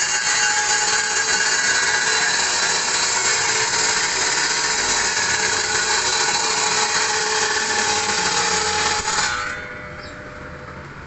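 Electric woodworking power tool running steadily as it works wood, a steady whine over a dense rushing noise, stopping about nine seconds in.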